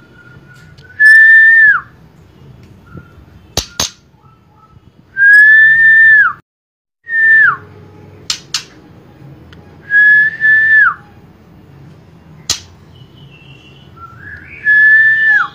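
Young F4 hybrid white-rumped shama giving clear whistled notes, five times, each held level for up to about a second and then sliding down at the end. A few sharp ticks fall between the notes.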